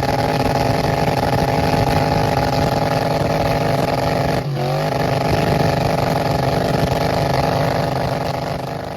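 Burnout truck's Chevy LS 5.3 V8 held at steady high revs. The revs dip briefly about halfway through and come straight back up, and the sound begins to fade near the end.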